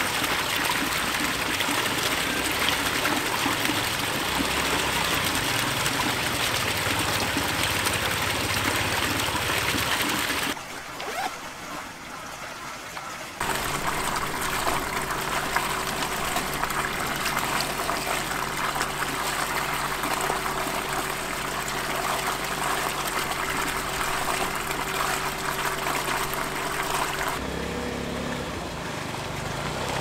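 Spring water pouring from a pipe spout into a concrete basin: a steady rushing splash that drops away for a couple of seconds about eleven seconds in, then returns. In the later part a steady low hum sits under the water.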